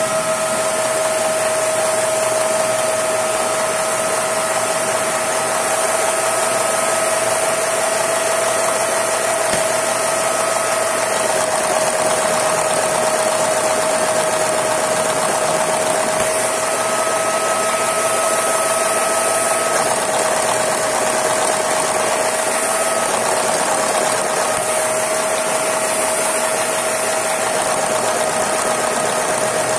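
Two vacuum cleaners running with a steady whine and rushing air, powering a brick-built Lego inline-four vacuum engine whose crankshaft spins as it runs.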